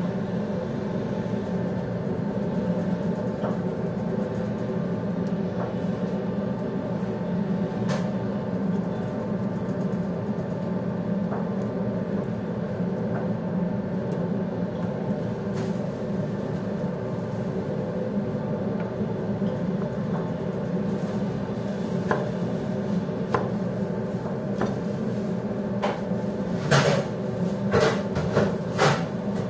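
Kitchen knife cutting pineapple on a plastic cutting board. Occasional single taps are followed near the end by a quick run of chops, all over a steady, loud machine hum.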